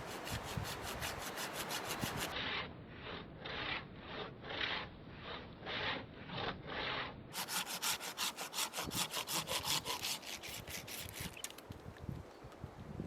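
Hand saw cutting through the base of a broken pine branch, the part loaded with resin, in steady back-and-forth strokes. In the middle there is a stretch of slower, duller strokes before the quick strokes resume, and the sawing eases off near the end.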